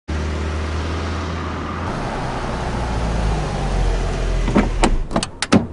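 Steady car engine and road hum, growing a little louder, then near the end a quick run of about six sharp clicks and clinks.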